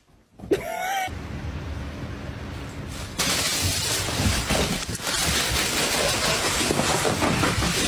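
A short squeal about half a second in, then steady crinkling and rustling of a plastic bag that grows louder about three seconds in.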